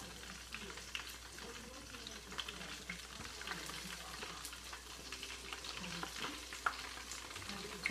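Hot oil in a deep fryer sizzling and crackling around frying pizza rolls, with scattered small pops.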